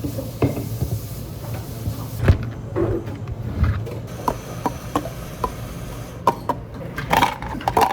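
Scattered knocks, taps and clinks of drink-making work at a café counter, roughly a dozen separate hits with a cluster near the end, over a steady low machine hum.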